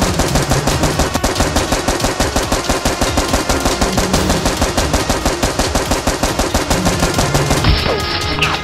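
Rapid automatic machine-gun fire, a sound effect laid over a Nerf blaster shootout: an even stream of shots about ten a second, stopping shortly before the end.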